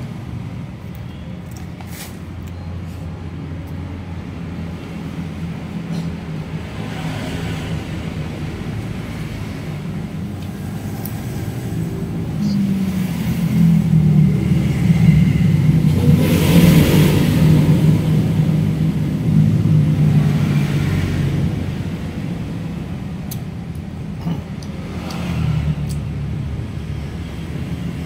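Low motor-vehicle engine rumble that swells to its loudest about halfway through, then eases off.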